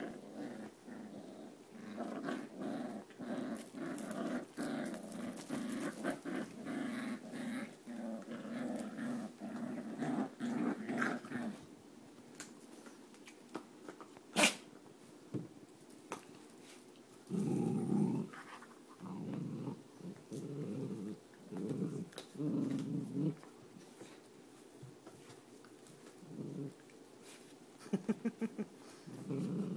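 Dachshunds growling at each other in play while they wrestle. There is a long stretch of growling for about the first twelve seconds, then shorter growls with pauses between them, and one sharp click near the middle.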